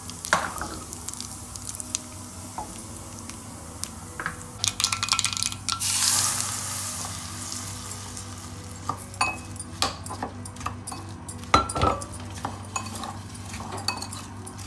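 Hot oil tempering with spices sizzling in a small pan. About six seconds in, a loud sizzling hiss as the hot oil hits the chopped apple. Then a metal spoon clicks and scrapes against the ceramic bowl as the pickle is mixed.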